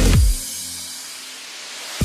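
Electronic background music: a falling sweep ends the loud section about a third of a second in, leaving a quieter hissing stretch before a new loud beat comes in at the very end.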